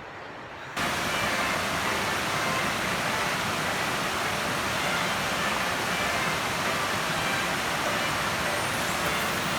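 Steady rush of flowing creek water, starting abruptly about a second in.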